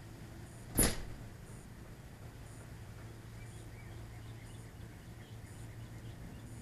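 A steady low hum with faint high ticks about once a second, broken by one sharp click a little under a second in.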